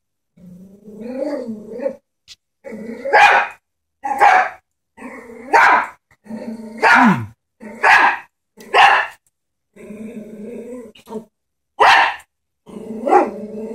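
Chihuahua growling and barking, low rumbling growls broken by about eight sharp, high barks. It is defensive barking at a stuffed toy horse that the dog is wary of.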